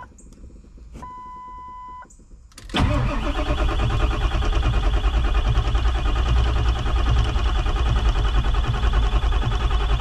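A single steady electronic chime beep about a second in, then from about three seconds in a diesel truck engine is spun over by the starter at cranking speed (around 150 rpm) without firing. It is a crank-no-start while the high-pressure oil pump tries to build injection control pressure after its oil reservoir drained down.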